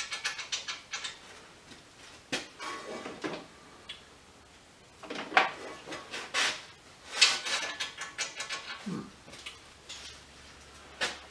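Metal tools and steel parts clinking and clattering on a workbench as a hydraulic strut spring compressor is put together, in scattered bursts with a busier run of clatter in the middle.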